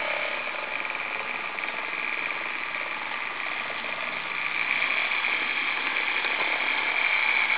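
Small electric motor and gears of an HO-scale model locomotive whining steadily as it runs across a double crossover; the sound grows louder about halfway through as the locomotive passes close.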